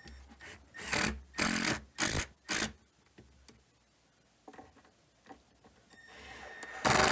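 Cordless Milwaukee impact driver driving screws into plywood in four short bursts, each a fraction of a second. A louder, longer burst of mechanical noise starts near the end.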